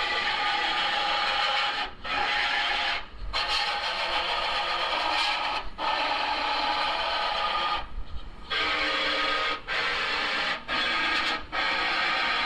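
A power grinder or sander running against the car's sheet-metal body, cleaning sealer and spot-weld remains off the panel mating flanges. The run is broken by several brief stops.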